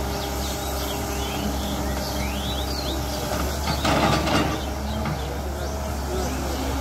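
Diesel engines of CAT hydraulic excavators, one a 320, running steadily as they dig and shift wet earth, with a louder burst of noise about four seconds in.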